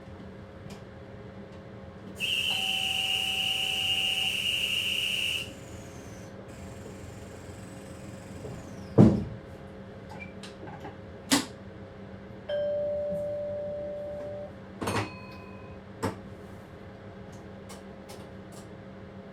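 Steady hum of a moving train heard inside the driver's cab. A loud, high, steady electronic tone sounds for about three seconds early on, a lower fading chime sounds for about two seconds later, and several sharp clicks or knocks come in between.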